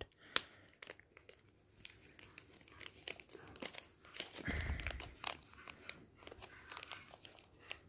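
Thin plastic bag crinkling and crackling in scattered small bursts as it is handled and opened by hand, with a soft low bump about halfway through.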